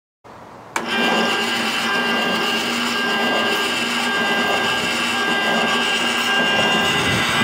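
Electric rotisserie motor turning a homemade perforated stainless-steel coffee-roasting drum in a gas barbecue: a steady mechanical whine and running noise that starts abruptly with a click just under a second in.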